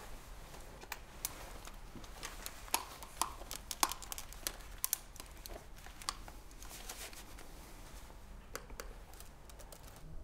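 Faint, irregular light clicks and taps, scattered over several seconds against quiet room tone.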